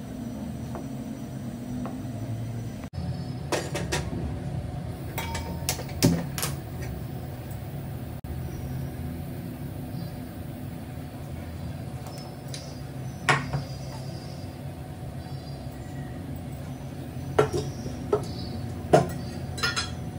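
Kitchen utensils and pots knocking and clinking now and then, a handful of sharp strikes over a steady low hum.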